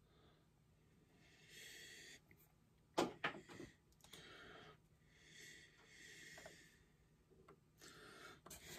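Faint breathing close to the microphone, about four slow breaths, with a few small sharp clicks about three seconds in.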